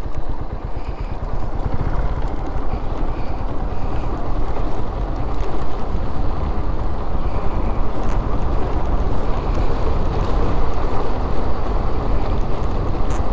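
Steady rumble of wind over the microphone and road noise from a motorcycle riding along.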